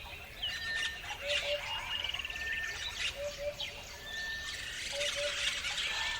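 Several wild birds chirping and trilling together, with a low two-note call repeating about every two seconds.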